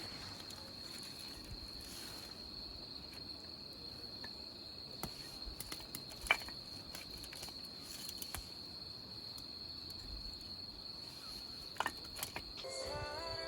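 Crickets chirring in one steady high-pitched drone, with a few sharp clicks, the loudest about six seconds in. Music comes in near the end.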